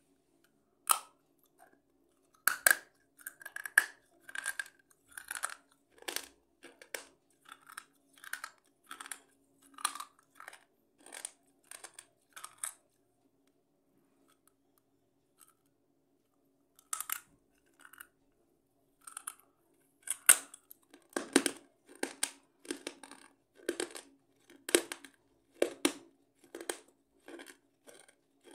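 Close-up biting and crunching: a run of sharp, crisp crackles, about one or two a second, which stops for a few seconds past the middle and comes back denser.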